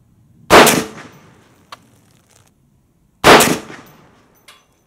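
Two shots from a CMMG Anvil semi-automatic rifle in .458 SOCOM, about three seconds apart, each dying away over about half a second. A faint short click comes between them.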